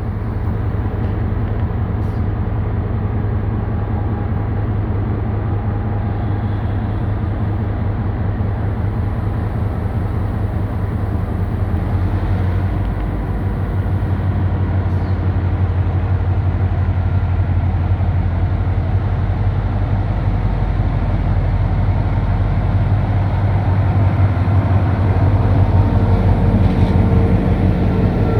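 A TCDD DE22000-class diesel-electric locomotive's engine running steadily with a deep, low hum. It grows somewhat louder in the second half.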